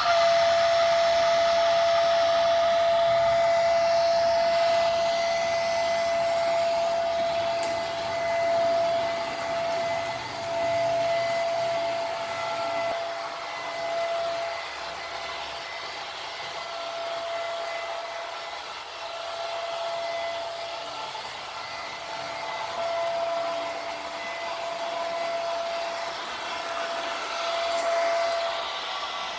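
Märklin model trains running on the layout: a steady high electric whine over a hiss of wheels on the track, swelling and fading a little as trains pass.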